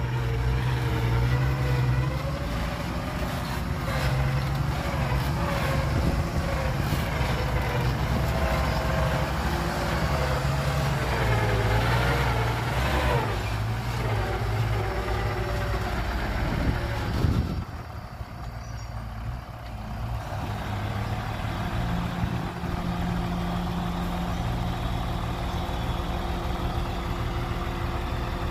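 Loaded dump truck's diesel engine running as it moves over rough dirt, its note rising and falling under load. About 17 seconds in it drops suddenly quieter, then settles into a steady hum as the truck raises its tipper bed to dump the soil.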